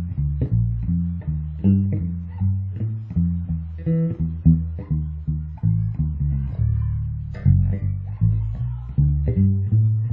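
FL Custom five-string electric bass played through its active preamp, a quick run of plucked notes with sharp attacks.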